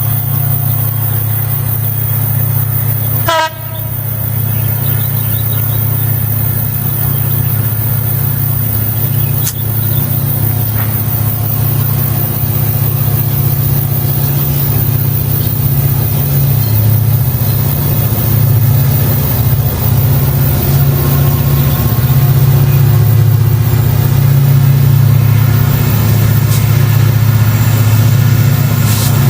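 Diesel-electric locomotive engine running with a steady low drone that slowly grows louder. About three seconds in there is a brief, higher sound.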